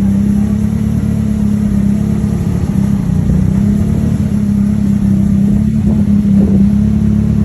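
A car engine running at a steady pitch.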